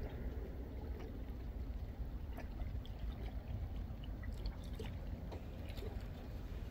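Outdoor ambience dominated by a steady low wind rumble on the microphone, with faint scattered ticks.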